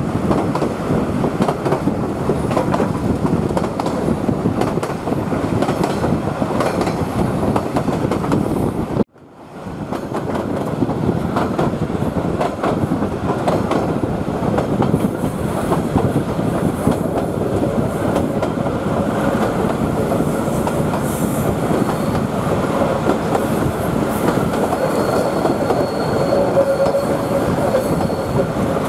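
Queensland Rail 2000 class diesel rail motor running over the track, heard from an open carriage window: a steady rumble with clickety-clack from the wheels. Near the end a thin, steady squeal rises over it as the wheels go round a tight curve. The sound cuts out briefly about nine seconds in and fades back.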